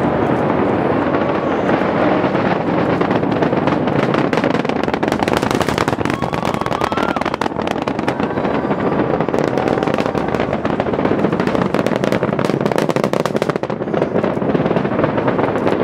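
Space Shuttle Atlantis's solid rocket boosters and main engines during launch, heard from miles off. A loud, continuous crackling roar as the shuttle climbs.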